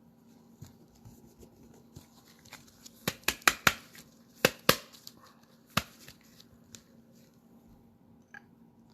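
A trading card pack being opened and the cards handled: light rustling with a quick run of sharp clicks and crinkles of the wrapper and card stock from about three to six seconds in.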